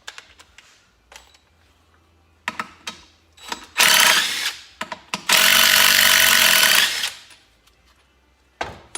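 A handheld power tool spinning out bolts in two runs, a short one and then a longer one of about two seconds, after a few light metal clinks.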